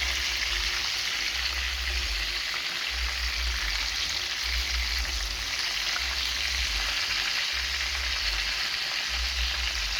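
Chicken pieces frying in hot oil: a steady sizzle, with a low hum pulsing on and off about once a second underneath.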